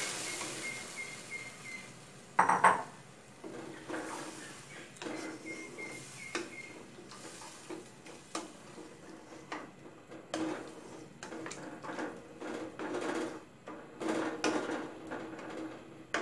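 Thin coconut milk poured into a hot pot of chicken frying in curry paste, the sizzle dying away within the first couple of seconds. Then a wooden spatula scrapes and knocks against the metal pot as the curry is stirred, with a louder knock about two and a half seconds in.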